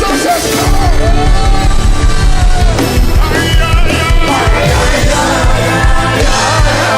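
Live worship music: a band with bass and drums playing a steady beat while voices sing, loudest in the second half as more voices join.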